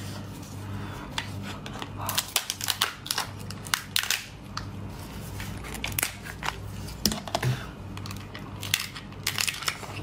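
Cooked lobster shell cracking and crunching as it is pulled apart by gloved hands: irregular sharp cracks and crackles.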